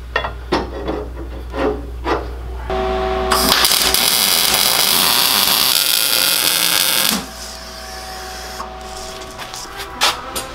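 A few metal knocks and clatter, then, about three seconds in, a MIG welder crackling and sizzling steadily for about four seconds as a mount is tack-welded onto the go-kart frame. It cuts off sharply and gives way to a quieter steady machine hum from a portable band saw running.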